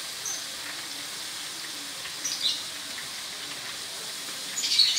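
Leafy greens frying in oil in a wok: a steady sizzle with a few sharper spits and crackles, one about halfway through and a louder cluster near the end.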